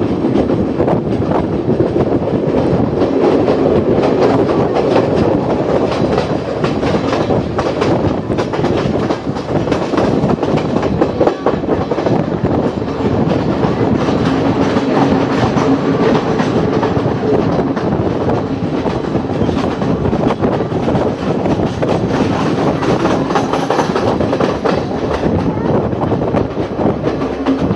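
Passenger train of Sri Lanka Railways running steadily, its wheels clattering over the rail joints in a constant clickety-clack, heard loud through an open carriage window.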